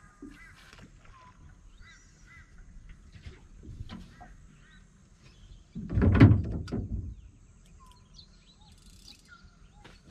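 Scattered bird chirps and calls over a quiet riverside background, with a loud thump about six seconds in that lasts around a second.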